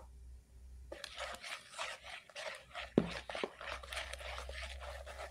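A plastic spatula stirring flour into coconut milk in a plastic bowl: a quick, busy run of scraping and scratching strokes starting about a second in, with one sharper knock against the bowl about three seconds in.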